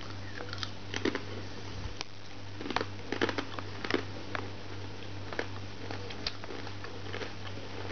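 Crunching and chewing of a crispy Cheez-It Grooves cracker chip: irregular sharp crunches at uneven intervals, over a steady low hum.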